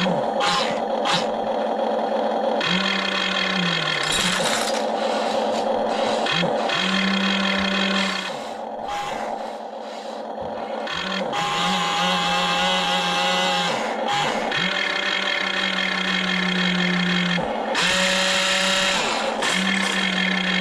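Small electric motors and gearboxes of a toy RC excavator whining as it works, running in spurts of a second or two that start and stop again and again.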